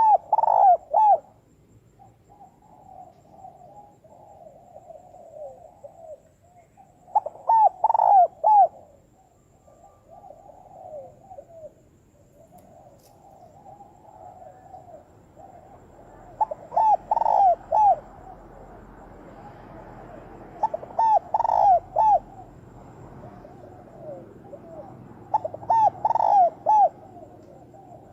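Spotted dove cooing as a lure call for drawing in wild doves. Five loud bursts of several quick coos come every few seconds, with softer, continuous cooing between them.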